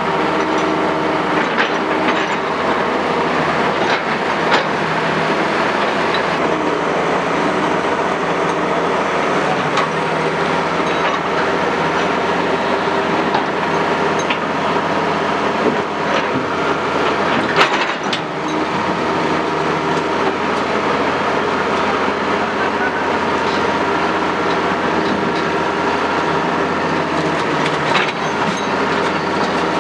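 Heavy diesel quarry machinery running steadily, with a few sharp metallic knocks and clanks.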